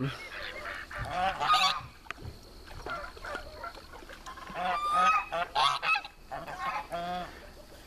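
Domestic geese honking on a pond: several separate calls, the loudest about a second in and again around five to six seconds in.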